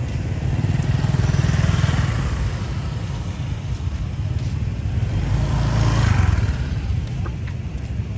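City road traffic, mostly motorbikes: a steady low rumble, with one vehicle swelling past about a second in and another louder one about six seconds in.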